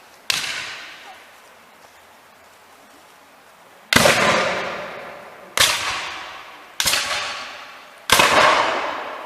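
Five black-powder gunshots from a Civil War reenactment skirmish: a single shot, a pause of several seconds, then four more in quick succession. Each shot leaves a long echo that fades over about a second.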